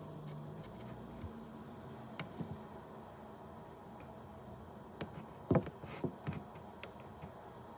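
Faint steady background hiss with a scattered handful of short, irregular clicks and light knocks, bunched together about five to six and a half seconds in.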